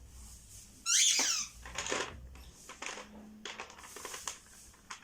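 A loud, high squeak falling in pitch about a second in, followed by scattered light clicks and rattles of small plastic assembly parts being handled.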